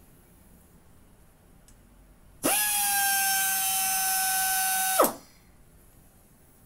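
Air die grinder (1/4-inch collet, 23,000 rpm free speed) run with no load: about two and a half seconds in it starts with a steady high whine, holds for about two and a half seconds, then stops sharply with a falling spin-down as the lever is let go.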